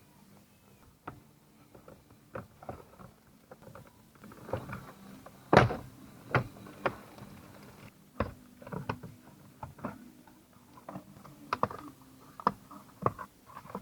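Plastic steering column shroud being unclipped and taken off: scattered sharp clicks and knocks of plastic trim, the loudest about five and a half seconds in.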